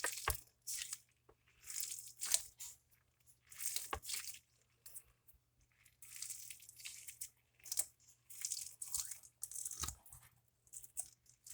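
Colour-changing Nee-Doh squishy stress ball being squeezed by hand: faint, sticky crackling squishes in irregular bursts, with an occasional sharp knock.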